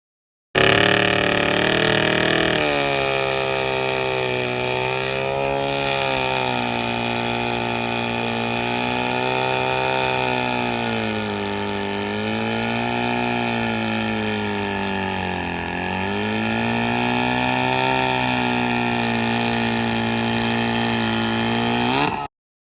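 Vintage chainsaw's two-stroke engine running at high speed, its pitch sagging and picking up again several times. It cuts in and out abruptly.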